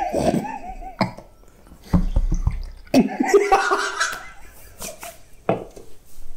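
Loud laughter, and about three seconds in a carbonated energy drink poured from a can into a glass, splashing for a second or so. A knock near the end as the can is set down on the counter.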